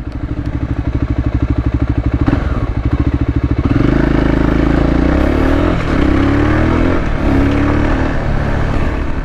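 Voge 300 Rally's single-cylinder engine pulsing along at low speed, then accelerating from about four seconds in, with two brief dips in the engine note as it shifts up.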